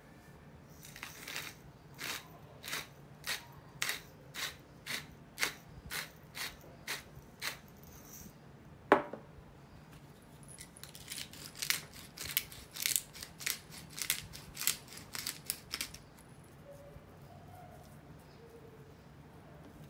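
Hand-twisted spice grinders ratcheting in rhythmic clicks. First comes a steady run of clicks for about six seconds, then a single loud knock as a grinder is set down on the table, then a faster run of clicks from a second grinder.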